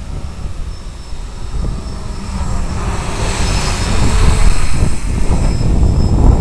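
Electric RC airplane's brushless motor and propeller whining in flight, under heavy wind rumble on the microphone. It grows louder and brighter about three seconds in.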